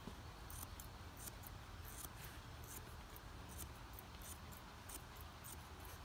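Thinning shears snipping through a terrier's tail fur: quick, faint, irregular snips, about three a second.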